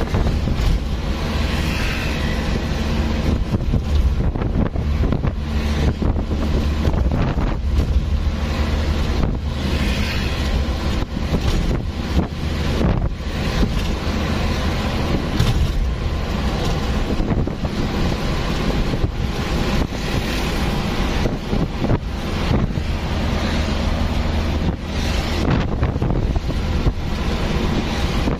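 Wind buffeting the microphone over the steady low drone of a moving vehicle's engine.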